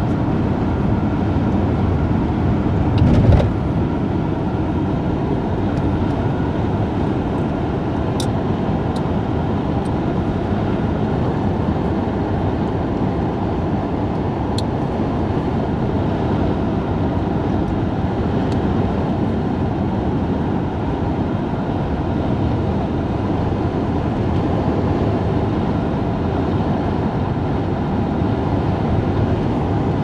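Steady road and engine noise of a moving vehicle, heard from inside the cabin, with a short bump about three seconds in and a few faint light ticks.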